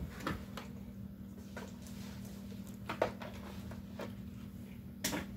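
A few short clicks and knocks from objects being handled, the loudest near the end, over a steady low hum.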